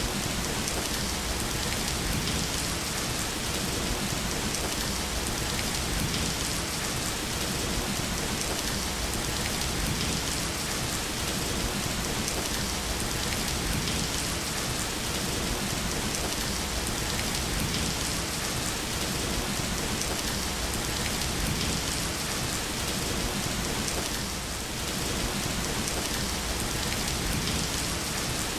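Steady rain falling in an even hiss, with a brief slight lull about three-quarters of the way through.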